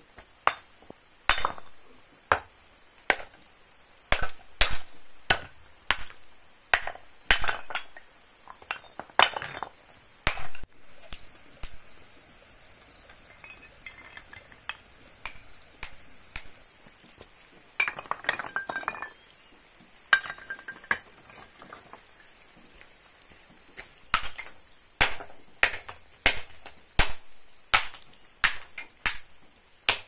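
Stone being knocked with a hammer while slabs are laid for a path: sharp knocks at irregular intervals, sparser in the middle stretch, with a few short clinks of stone on stone. Insects chirr steadily in a high pitch throughout.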